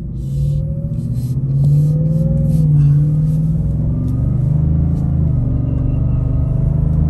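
Whipple Stage 1 supercharged 5.0-litre V8 of a Roush Ford F-150 pulling under load through its Roush exhaust with the baffle removed, heard from inside the cab as the truck accelerates. The engine note rises over the first few seconds, dips briefly about three seconds in, then holds steady.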